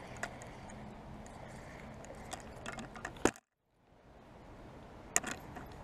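Sharp clicks and rattles of a fishing rod and reel being handled and cast, over a steady background hiss. The loudest clicks come just after three seconds and again about five seconds in, and the sound cuts out for a moment between them.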